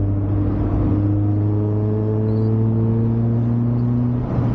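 Mazda MX-5 engine pulling through a gear, its pitch slowly rising, with a short break and dip near the end.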